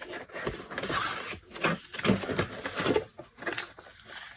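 Paper leaflets and cardboard packaging being handled, rustling and scraping irregularly.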